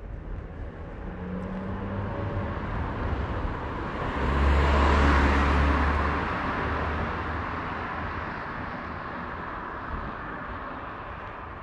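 A car passing close by from behind, its engine and tyre noise swelling to a peak about halfway through with a low rumble, then slowly fading as it drives away.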